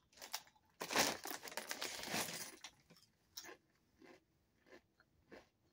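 Doritos tortilla chips crunching as they are bitten and chewed: a dense run of crunching for about two seconds, then a few single crunches roughly every half second.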